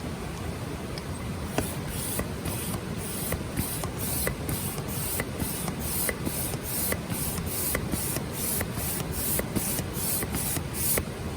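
Campfire crackling with small scattered pops, joined from about a second and a half in by a rhythmic hissing rasp at about three strokes a second, which stops shortly before the end.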